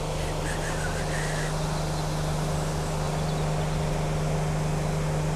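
A steady low hum of a running motor, at one unchanging pitch, over a constant rushing outdoor noise.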